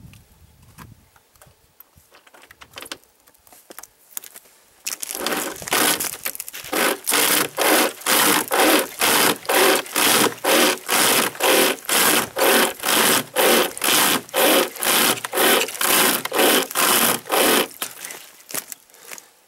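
Homemade pocket chainsaw, a length of chainsaw chain pulled back and forth by webbing straps, rasping through a dead log at about two strokes a second. The sawing starts about five seconds in, after some quieter rustling and clicks, and stops near the end.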